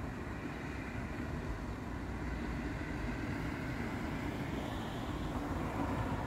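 A car driving past on the street, its engine and tyre noise growing louder toward the end as it comes level.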